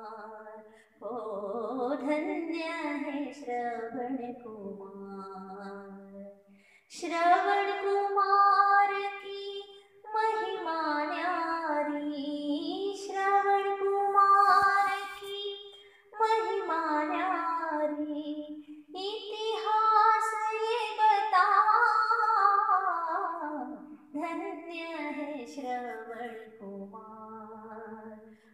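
A woman singing a Hindi devotional song (bhajan), in long held phrases with short breaks between.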